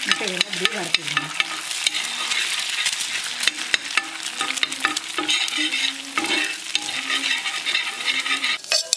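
Two eggs sizzling in oil on a dosa tawa while a steel spoon stirs and scrapes them, with frequent sharp clicks of the spoon against the pan.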